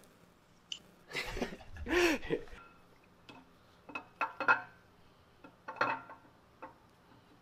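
Light metallic clinks and taps from a camshaft being worked out of a 5.3 L LS V8 block, using long bolts threaded into its nose as a handle, with the cam and bolts knocking against the block. About a second in comes a louder rustling, scraping sound with a brief rising-and-falling squeak.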